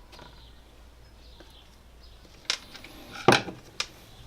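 Small metal cylinder-head parts clinking as they are handled and set down on a workbench: a few sharp clicks in the second half, the loudest a little over three seconds in.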